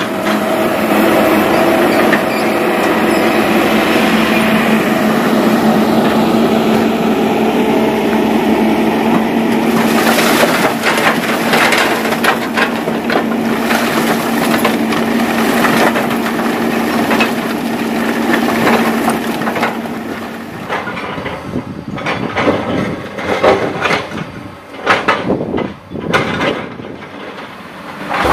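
Kobelco SK200 excavator's diesel engine running steadily under load while its bucket tips rock and gravel onto a steel screen over a dump truck's bed, with a dense clatter of stone striking metal from about ten seconds in. Later in the clip the engine hum drops away, leaving scattered, irregular knocks.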